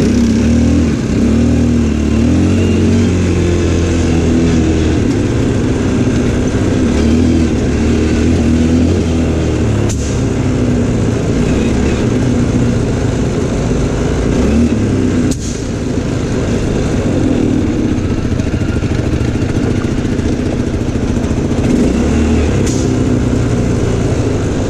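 ATV engines running while riding a dirt trail, the pitch rising and falling with the throttle. Three sharp knocks come through, about ten, fifteen and twenty-three seconds in.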